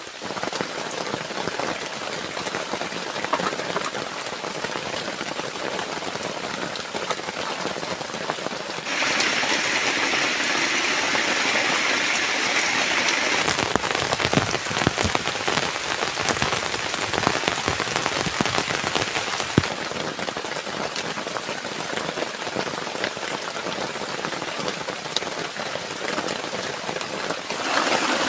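Heavy rain: a steady hiss dense with separate drop hits. It changes abruptly and grows louder about nine seconds in, and shifts again around twenty seconds.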